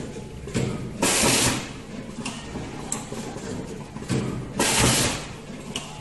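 Automatic wire stripping, twisting and soldering machine running: a steady low hum with light clicks of its mechanism, and two loud hisses of about half a second each, some three and a half seconds apart.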